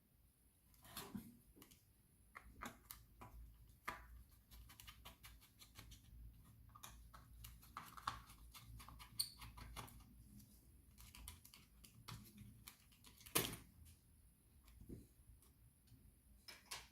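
Faint, scattered small clicks and taps of hard objects being handled, with one louder knock about 13 seconds in.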